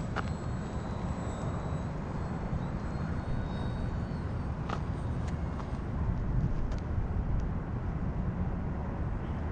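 E-flite Pitts S-1S RC biplane in flight: its electric motor and propeller give a faint high whine that drifts in pitch. Under it runs a steady low rumble, the loudest part of the sound.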